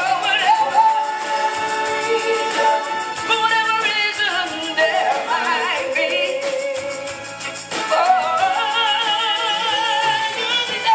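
Live soul music: a singer holding long notes with vibrato over the band's accompaniment.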